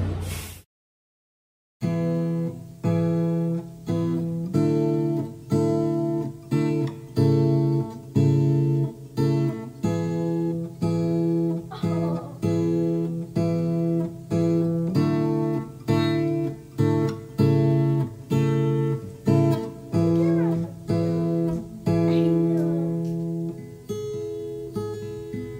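Background music: an acoustic guitar playing steady, rhythmic plucked chords, starting after a brief gap of silence about a second in.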